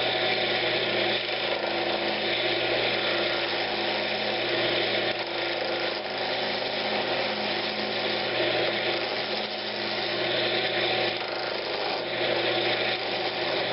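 Wood lathe running with a 3/8-inch bowl gouge cutting a loose-grained old pine blank, roughing it from square toward round: a steady motor hum under the rough hiss of the cut, which swells and eases a little as the tool moves.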